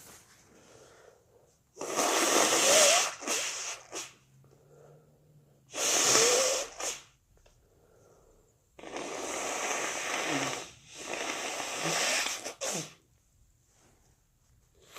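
A person sneezing wetly, over and over: two loud sneezes about four seconds apart, each with a short catch after it, then two longer, quieter sneezing bursts.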